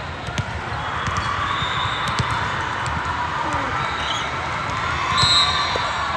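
Indoor game noise in a gym: a ball bouncing in scattered knocks, high squeaks, and a murmur of voices from players and spectators, with a short high tone about five seconds in that is the loudest moment.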